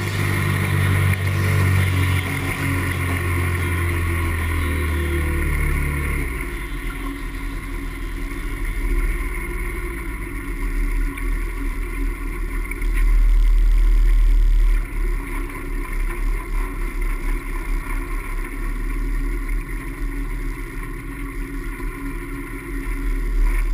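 Outboard motor of a small open fishing skiff running under way, its deep tone dropping as it is throttled back about six seconds in, with water rushing along the hull. A low rumble, loudest about halfway through, sits under it.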